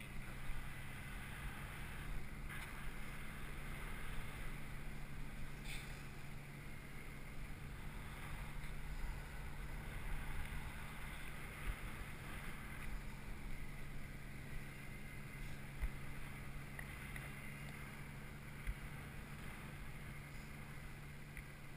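Steady wind rushing over a GoPro's microphone high in the air under a parasail, with a constant low drone beneath it and a few brief soft buffets.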